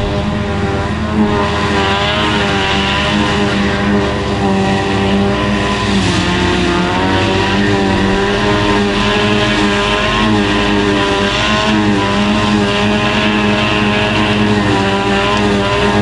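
John Deere 7300 self-propelled forage harvester running under load as it chops grass and blows it into a trailer, its engine drone mixed with a tractor engine running alongside. The drone is steady and loud, its pitch dipping briefly about six seconds in.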